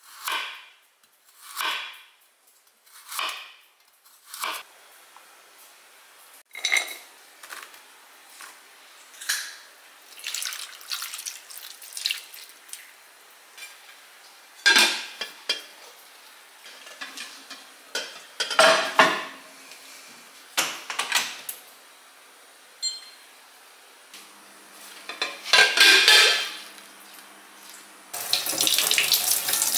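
A knife cuts through carrots on a wooden cutting board, one stroke about every second and a half. Then a glass bowl and a ceramic plate clatter as they are handled, and near the end water starts running steadily from a tap.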